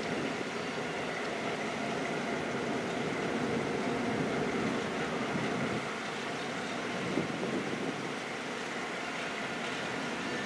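Grafton & Upton Railroad diesel locomotive and passenger coaches moving slowly past, a steady running noise of engine and wheels on the rails.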